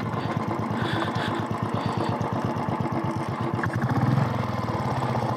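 Royal Enfield Thunderbird 350's single-cylinder engine running as the bike rides slowly over a sandy track, a steady rapid beat of firing strokes that swells briefly about four seconds in.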